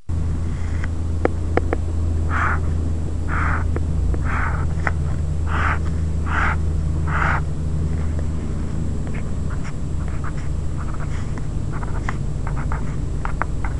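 Pen strokes on paper: six scratching strokes about a second apart as the grid lines are drawn, then a run of short ticks and scratches as small digits are written. A steady low hum runs underneath.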